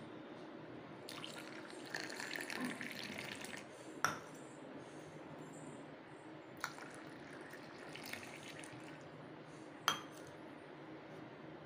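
Frothy egg-and-milk mixture poured back and forth between two stainless-steel tumblers: two stretches of splashing pour, with sharp ringing clinks of the steel tumblers about four seconds in and near the end.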